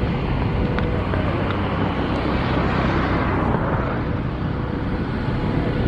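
Diesel locomotive hauling a short train across a sea bridge, heard as a steady low engine rumble mixed with wind noise on the microphone. The hiss swells for a moment about three seconds in.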